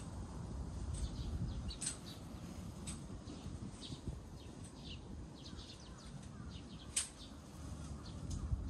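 Small birds chirping repeatedly, short falling chirps scattered throughout, over a low steady rumble. A single sharp click about seven seconds in.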